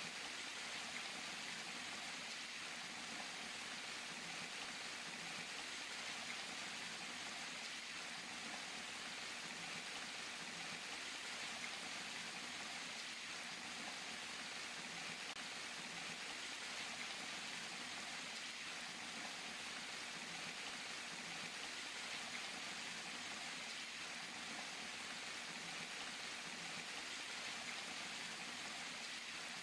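Water falling and splashing in a steady, even rush.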